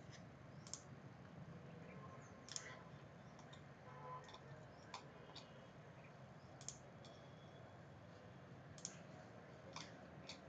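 Computer mouse button clicks, about eight sharp single clicks at irregular intervals over faint room hiss: a mouse picking points on screen.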